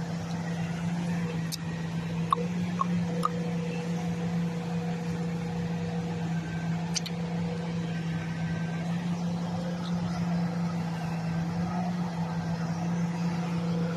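Refuse collection truck running: a steady low hum with a few faint clicks.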